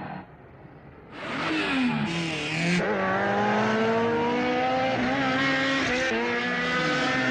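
Sports car engines racing side by side, a Lamborghini Miura and a coupe. After a quieter first second the engine sound swells, dips once in pitch, then climbs steadily as the cars accelerate.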